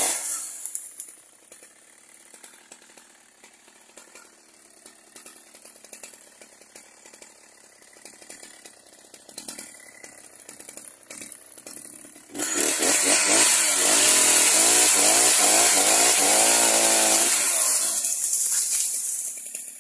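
Husqvarna 61 two-stroke chainsaw. Its throttle is let off at the start and it idles quietly for about eleven seconds. About twelve seconds in it is opened to full speed and cuts a branch for about five seconds, the engine pitch wavering under load, then drops back near the end.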